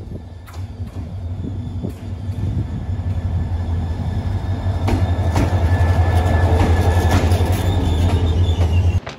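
KORAIL diesel locomotive pulling a passenger train into the station and passing close by as it slows to a stop: a deep engine drone that grows steadily louder, with wheel clacks over the rails and a thin high brake squeal in the second half. The sound cuts off abruptly near the end.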